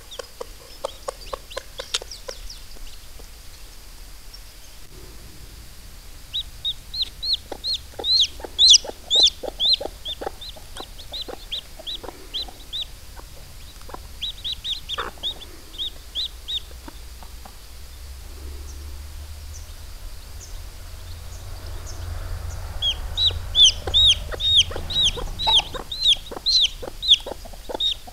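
Newly hatched chick peeping in runs of short, high calls, about three or four a second, with three spells of peeping. A hen clucks softly beside it.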